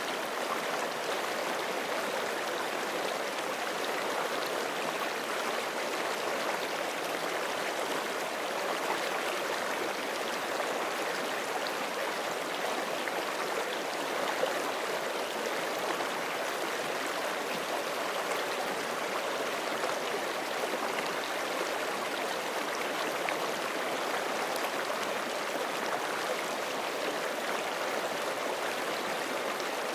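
Forest creek flowing steadily over rocks, an even rushing babble of water, with one small click about halfway through.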